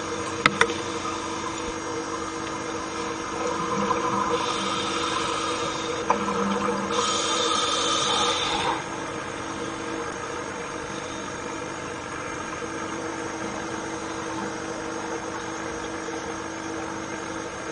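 Steady machine-like hum: several constant tones under a hiss, louder and brighter from about four to nine seconds in.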